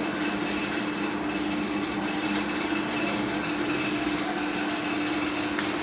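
Stick-welding (SMAW) arc burning steadily on a vertical 3G V-groove joint: an even hiss over a steady low hum.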